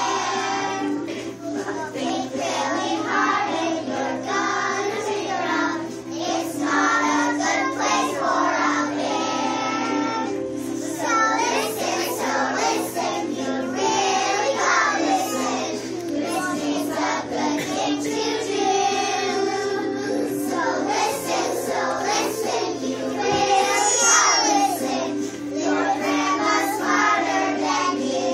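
A group of young children singing a song together with musical accompaniment.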